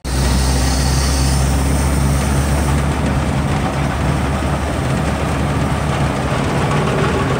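Truck engine and road noise heard from inside the cab while driving: a loud, steady low drone with a rushing noise over it.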